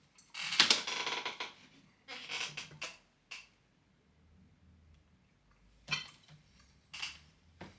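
Handling noises on a desk: a rustling scrape in the first second or so, a second shorter cluster, then a few separate knocks and clicks with quiet between.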